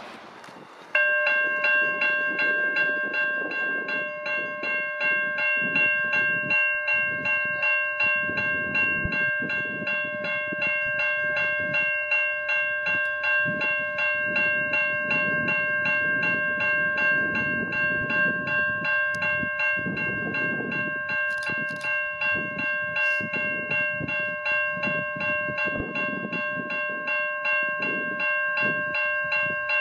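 A train running by while a steady ringing tone sounds throughout with a fast, even pulse, as level crossing warning bells do. The sound starts suddenly about a second in.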